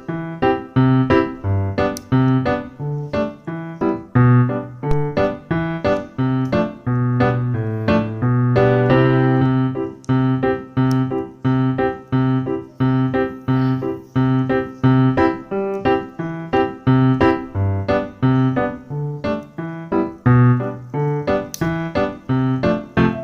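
Background piano music: a steady run of struck notes at an even pace, about two notes a second.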